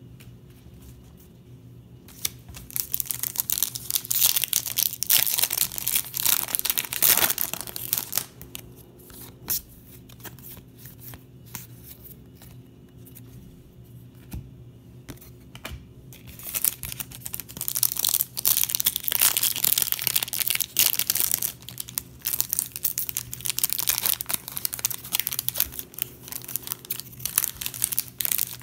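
Foil trading-card pack wrappers being torn open and crinkled in the hands, in two long stretches of loud crackling. Between them comes quieter rustling as the cards are flipped through.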